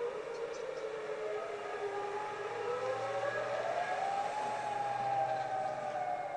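Distant AHAB tsunami warning sirens wailing. Several siren tones rise and fall slowly and overlap. They are audible but not ear-piercing.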